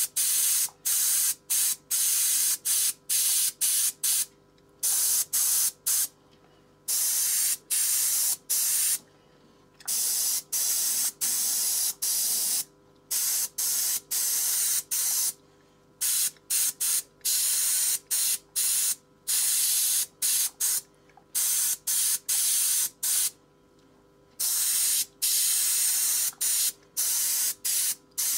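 Airbrush spraying paint in short hissing bursts, the trigger pressed and released over and over, with a few longer passes lasting a second or two, over a faint steady hum.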